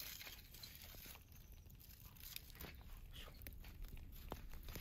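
Faint, scattered crunching and crackling of campfire coals as a foil-wrapped sweet potato is pushed deeper into the embers.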